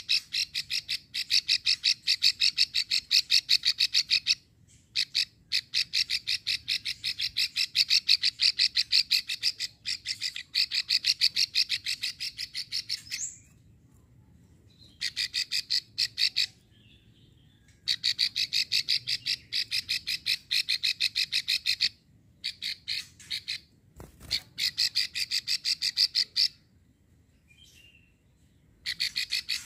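Female prenjak sawah, a prinia, giving its long 'klik' rattle: runs of rapid dry clicks, many a second, each run lasting several seconds, with short pauses between runs.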